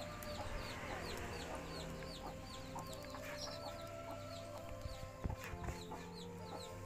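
Birds chirping, a high, quick call repeated about three times a second, over quiet background music.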